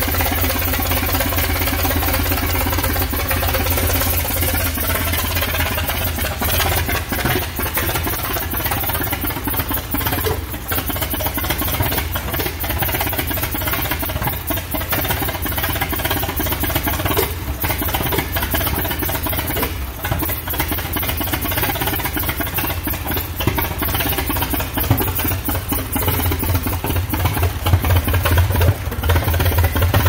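1914 Holt 45 hp combine harvester engine running steadily on its first run, an even low firing beat that grows a little louder near the end.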